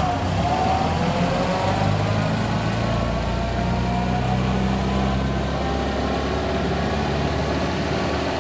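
1960 MGA's upgraded 1800 four-cylinder engine, on a single Weber carburettor, running at idle. The revs drop in the first second, then it idles steadily.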